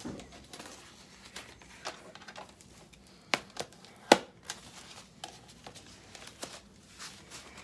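Crinkling and rustling of a thin packing wrap being pulled off a new sewing machine, with scattered sharp crackles, the loudest about four seconds in.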